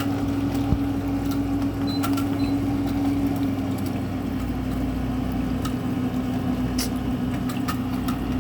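GE 6,000 BTU wall air conditioner running, its compressor and fan giving a steady low hum with one strong droning tone and scattered faint ticks. The unit's evaporator coils are icing up and it blows only weak air, which the owner puts down to an overcharge.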